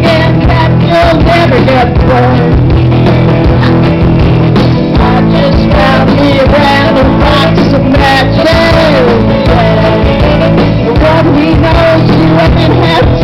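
Live rock band playing loudly through a PA, with guitar and a wavering sung or lead melody line over a steady bass.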